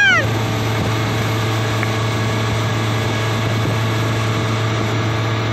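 Boat's outboard motor running steadily at towing speed, a low, even drone under the rush of wind and churning wake water.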